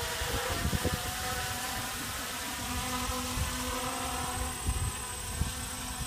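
Quadcopter drone's electric motors and propellers buzzing steadily with small shifts in pitch as it comes down to land, settling on the ground near the end. Wind buffets the microphone in low gusts.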